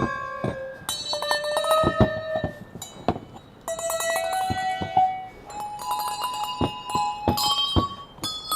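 Bells struck one after another with a mallet, each hit a sharp strike that then rings a clear tone, the pitch changing from bell to bell as they are rung in quick succession.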